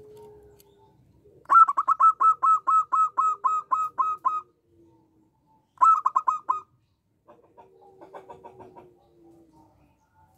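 Zebra dove (perkutut) calling: a quick run of about a dozen loud, short notes at roughly four a second, a pause, then a shorter run of five, followed by fainter notes near the end.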